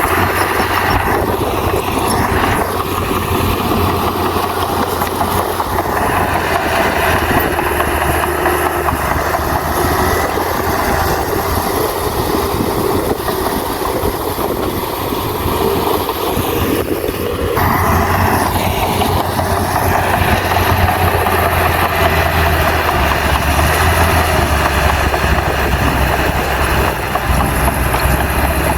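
Bulldozer's diesel engine running under load, continuous and loud. Its sound shifts about 6 seconds in and again, a little louder, about 18 seconds in.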